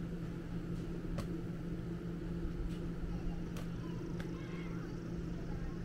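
Steady low machine hum with a few faint, sharp taps.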